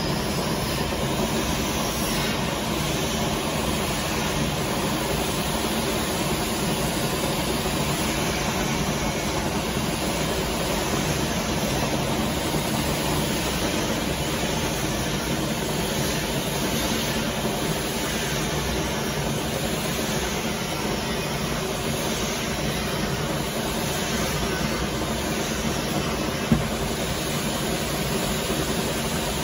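Mug sublimation tunnel furnace with a wire-mesh conveyor running, giving a steady mechanical drone. One sharp click sounds near the end.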